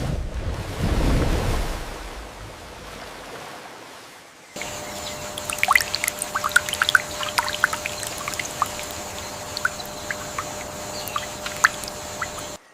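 A low whooshing rumble fades out. About four and a half seconds in it cuts suddenly to water trickling and dripping, many small irregular drips over a steady faint hum.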